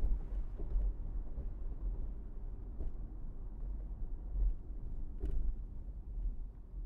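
Low, steady rumble of a car on the move, the road and engine noise of city driving, with two short clicks about three and five seconds in.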